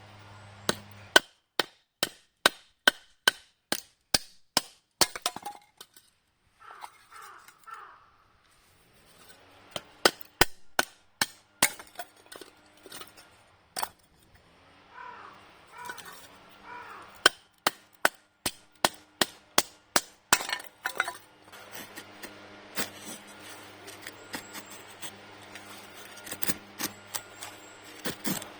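Repeated sharp knocks like hammer strikes, evenly spaced at about two to three a second. They come in three runs with short pauses between, and turn to fainter, scattered tapping near the end.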